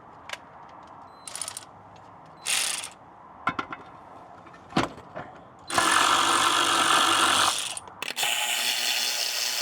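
Power tool spinning a 16 mm socket to run the transmission crossmember bolts in. It gives a couple of short bursts, then two longer runs of about two seconds each from about six seconds in, with light clicks of handling between.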